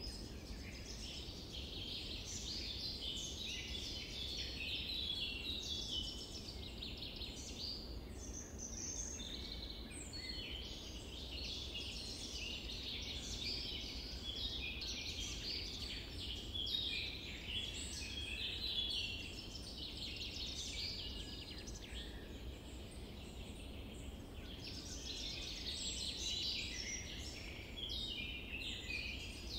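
Dense chorus of small songbirds, many overlapping quick chirps and trills, over a steady low background hum.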